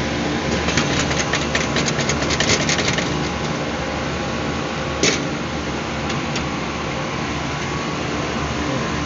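Rapid metallic rattling and clicking for about two seconds, starting about a second in, as an air-conditioner condenser fan motor is worked out of its metal mounting bracket. A single sharp knock follows about five seconds in, over a steady machinery hum.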